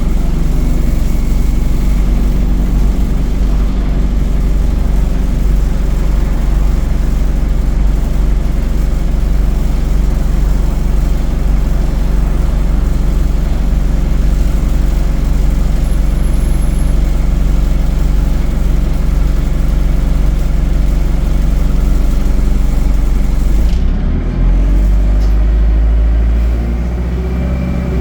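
ADL Enviro 200 bus running, heard on board: a steady, loud engine drone with a hiss over it. About 24 seconds in, the hiss drops out abruptly and the engine note changes, sliding in pitch.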